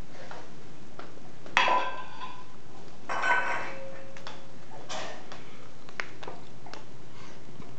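Small stainless steel bowl clanging against a hardwood floor: two loud metallic clangs with ringing about one and a half and three seconds in, then a few lighter knocks.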